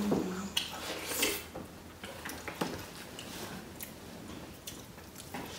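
Quiet sounds of a dal bhat meal being eaten: soft squishing and a few scattered light clicks.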